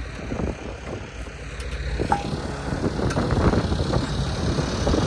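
Gusty wind buffeting the microphone over the low rumble of a vehicle engine running, the rumble growing louder after about a second.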